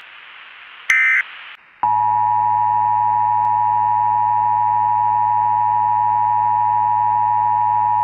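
A short electronic beep over hiss, then the Emergency Alert System two-tone attention signal starting about two seconds in: a loud, steady, harsh chord that holds without change.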